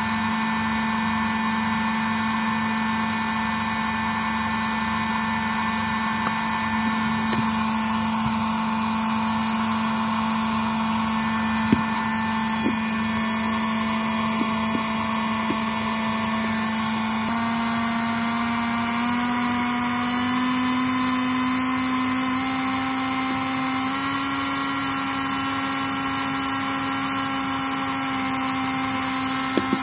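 Mini DC motor with a metal reduction gearbox (KR13004 long-shaft type) running steadily with a high whine. Its pitch steps up a few times in the second half as its supply voltage is raised from about 5 V to 6 V, speeding the motor up. A few light clicks midway.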